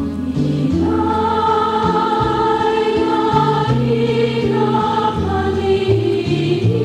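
Background music: a choir singing long held notes over a stepping bass line, with the voices swelling in about a second in.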